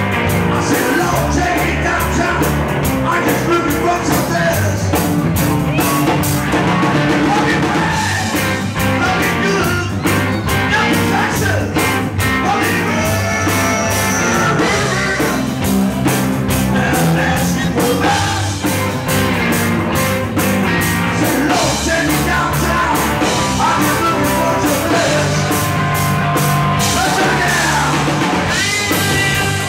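Live blues-rock band playing: drum kit, electric bass and guitars, with a harmonica played into a handheld microphone.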